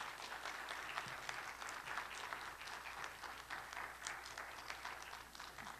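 Audience applauding, a dense patter of many hands clapping that dies away at the very end.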